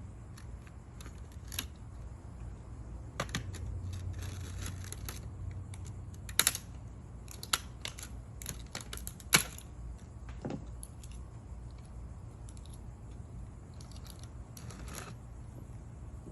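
Scattered light plastic clicks and cracks from a smashed plastic smoke alarm being handled and pulled apart, with a few sharper knocks about six and a half, seven and a half and nine and a half seconds in.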